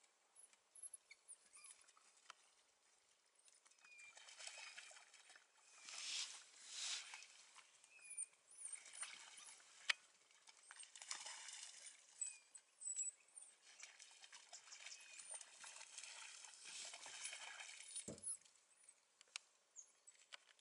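Faint pattering and rustling of a pack of African painted dogs moving about and playing, with scattered short high chirps and a single sharp tick about halfway through.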